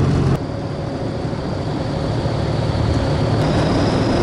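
De Havilland DH-83 Fox Moth's Gipsy Major inverted four-cylinder engine droning in flight, with wind rushing over the open cockpit. About half a second in, the sound drops abruptly to a quieter, lower drone, then slowly builds again.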